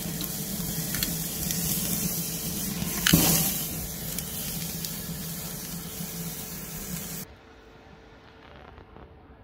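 Picanha searing over open charcoal flames in a kamado grill: a steady hiss of fat sizzling and fire, with one louder flare-up whoosh about three seconds in. The sound cuts off suddenly about seven seconds in, leaving only faint clicks.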